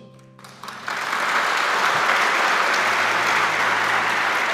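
A large crowd applauding. The clapping breaks out about a second in and holds steady.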